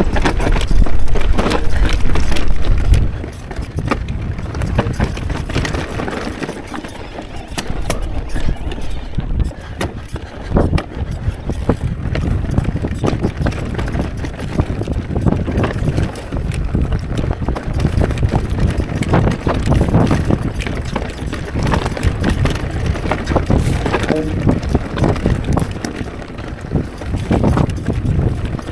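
Mondraker Crafty electric mountain bike riding over a rocky trail: tyres on stone with the bike's chain, frame and suspension rattling in quick, irregular knocks. Wind rumbles on the camera microphone, heaviest in the first three seconds.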